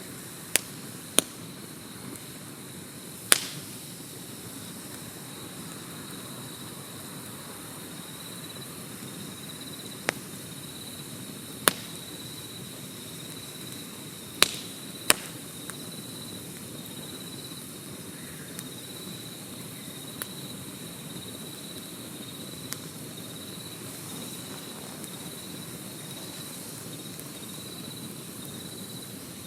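Wood campfire burning with a soft steady hiss and sharp, scattered pops and cracks, several of them loud. From about eight seconds in, a steady high insect trill runs behind it.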